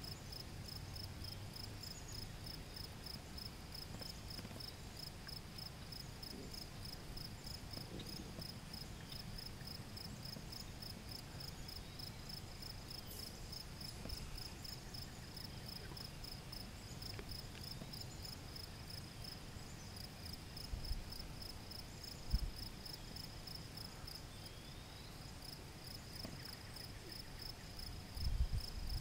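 A steady, high-pitched, rapidly pulsing insect trill that goes on throughout, over a low rumble, with a few dull low thumps in the second half.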